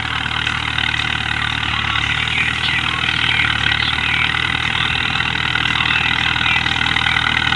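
A 2007 Al-Ghazi tractor's diesel engine runs steadily under load as it pulls a rear blade through sand. It grows slightly louder towards the end.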